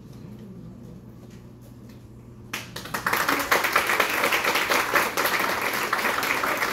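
Audience applause starts suddenly about two and a half seconds in, after a quiet stretch, and carries on as dense clapping.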